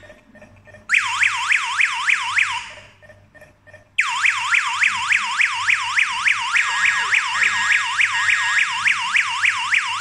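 Daytech TA03 alarm panel's siren sounding an alarm after the system has been armed: a fast wailing tone sweeping up and down about four times a second. It cuts out twice, at the start and about three seconds in, then sounds without a break from about four seconds in.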